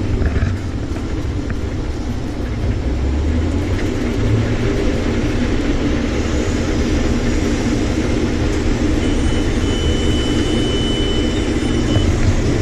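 Combine harvester running steadily under load while harvesting soybeans, a dense low machine rumble. A thin high tone sounds for a few seconds near the end.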